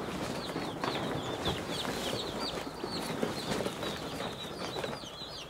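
A group of newly arrived Meat King broiler chicks peeping: short, high chirps, several a second, overlapping.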